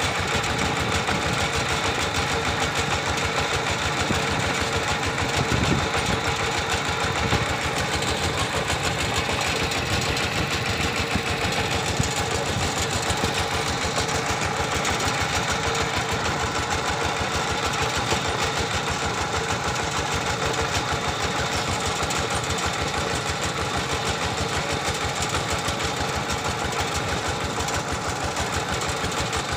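Two-wheel walking tractor's single-cylinder diesel engine running steadily as the tractor is driven along, a fast, even beat without change.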